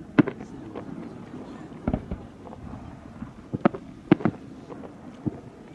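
Fireworks display bursting: a string of sharp, irregular bangs, some in quick pairs, with short echoing tails.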